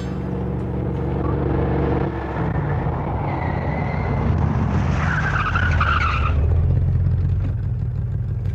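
Car sound effect: an engine running steadily, with a tyre and brake screech about five seconds in, lasting just over a second, as the car comes to a stop.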